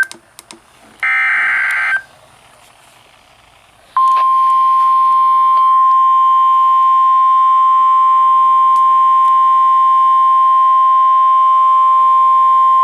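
NOAA Weather Radio emergency alert: the last burst of the buzzy SAME digital header about a second in, then, about four seconds in, the steady 1050 Hz warning alarm tone, held to the end. Together these signal that a warning is being broadcast, here a severe thunderstorm warning.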